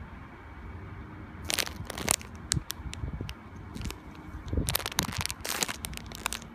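Clear plastic packaging crinkling as a squishy toy wrapped in it is handled and turned. It comes in two bursts of crackling, about a second and a half in and again near five seconds, with a few single clicks between.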